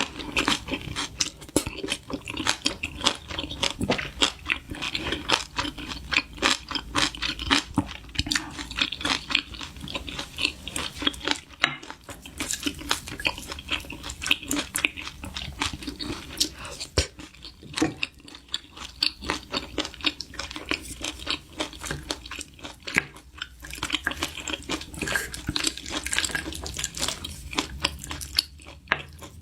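A person eating: rapid crunching and chewing of food, many sharp crunches in quick succession, broken by a few short pauses.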